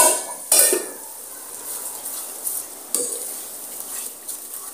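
Wooden spatula stirring yogurt into masala frying in oil in a pressure cooker, over a steady sizzle. The spatula knocks against the pan a few times, loudest about half a second in.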